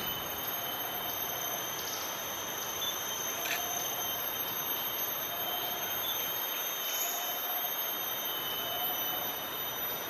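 Forest ambience: a steady insect chorus holding several high-pitched tones over a hiss. A short mid-pitched call repeats about every second and a half.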